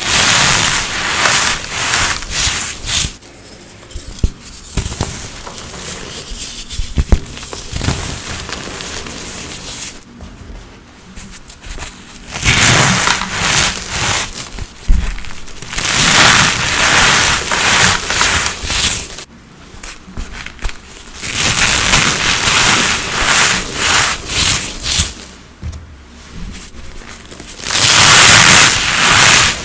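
A mass of dried, reformed coloured powder and sand chunks being crushed, crumbling and crackling in several long bursts. Between the bursts there is quieter rubbing and rustling with a few sharp cracks.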